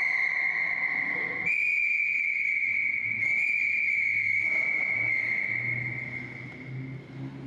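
Accompanying music for the movement piece: one high note held steadily, struck again twice in the first half and fading near the end as low notes come in underneath.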